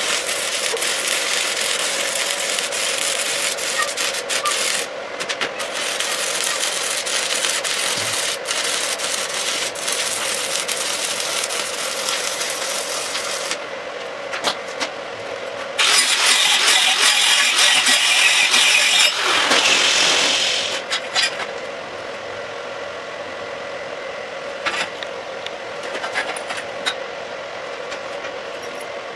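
Shielded metal arc (stick) welding with a cellulosic 6010/6011-type electrode: the arc crackles and sputters steadily for about 13 seconds and then stops. About 16 seconds in there is a louder, harsher stretch lasting a few seconds, followed by a steady hum with scattered small clicks.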